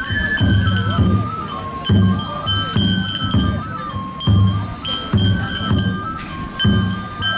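Shishimai lion-dance accompaniment: a Japanese bamboo flute playing a stepping melody over steady taiko drum beats.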